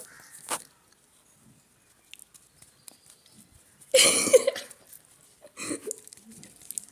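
A person's short, loud non-speech vocal burst about four seconds in, with a smaller one a little later, amid faint clicks and handling noises.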